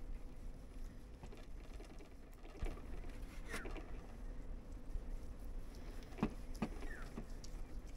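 Knife carving roast pork with crackling on a plastic cutting board: scattered crunchy scraping strokes, bunched about two and a half seconds in, at three and a half seconds, and several more near the end. A couple of short falling chirps sound behind it.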